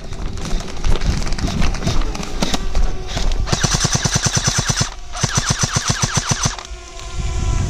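Airsoft gun firing two long full-auto bursts, each about a second and a half, rattling at a rapid even rate with a brief break between them. Scattered single pops come before the bursts.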